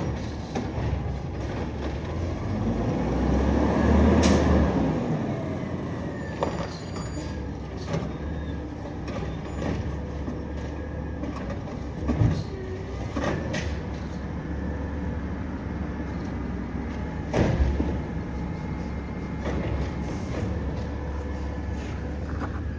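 Garbage truck engine running with a swell of noise about three to five seconds in, and sharp metallic bangs, the loudest about twelve and seventeen seconds in.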